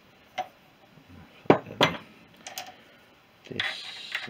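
Steel parts of a mini lathe's home-made divider being handled: a few sharp metal clinks and knocks as a bolt with a nut is set into a steel plate, the loudest two close together about a second and a half in, then a short scraping rustle near the end.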